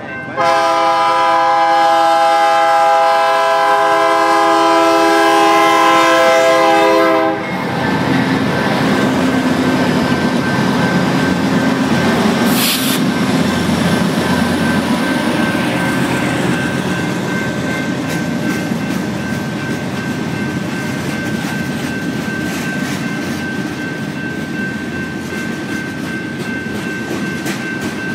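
BNSF 5048's multi-chime locomotive air horn sounds one long blast for about the first seven seconds, then the freight train rolls through the crossing with a steady clatter of wheels on rail. The grade-crossing bell rings throughout.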